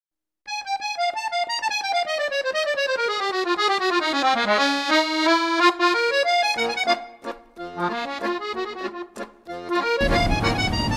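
Accordion music in the French musette style: a fast run of notes falling in pitch, then a bouncy melody. A short burst of rushing noise joins it near the end.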